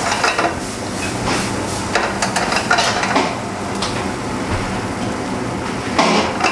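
A spatula stirs a thick bean mixture in a metal frying pan, scraping and clinking against the pan, with a louder knock about six seconds in, over a steady low hum.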